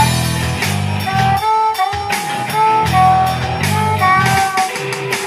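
Live band playing an instrumental break of a blues-country rock song: guitar holding long melodic notes over low bass notes and drum hits.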